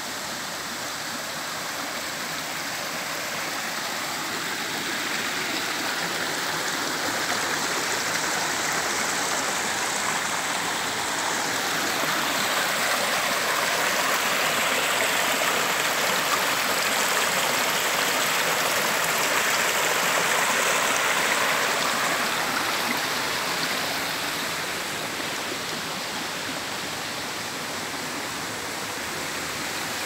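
A shallow stream running over rock slabs and small cascades, a steady rush of water that grows louder through the middle and eases off again near the end.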